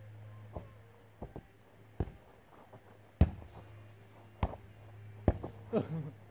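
A ball being kicked and headed back and forth: dull thumps at irregular intervals, about six clear ones, the loudest about three seconds in, over a steady low hum.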